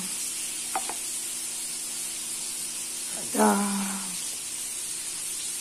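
Steady hiss of oil sizzling as a batch of floured chicken wings fries. A short voiced hum or 'uh' comes about halfway through, and there is a light click near the start.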